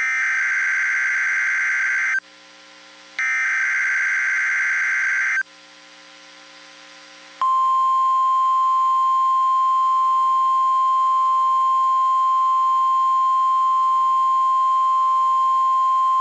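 NOAA Weather Radio emergency alert: two bursts of SAME digital header data, a harsh buzzing screech of about two seconds each with a second of quiet between them, then after a short gap the steady 1050 Hz warning alarm tone sounding about seven seconds in and held unbroken. It is the alert signal that opens a new warning broadcast, here a tornado watch.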